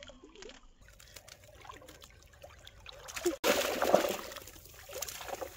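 Water trickling and splashing, with a sudden louder rush of splashing noise about three and a half seconds in that fades over the next second or so.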